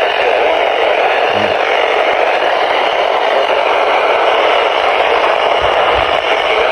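Steady static hiss from a weather radio receiver tuned to a weak, distant station, with a couple of faint low bumps about a second and a half and six seconds in.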